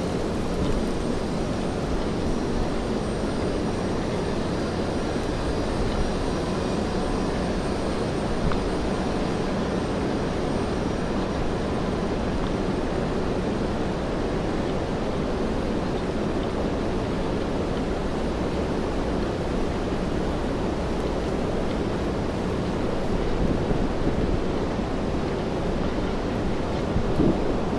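Steady rain-soaked city street ambience: rainfall and traffic blending into a constant low rumble, with no distinct events.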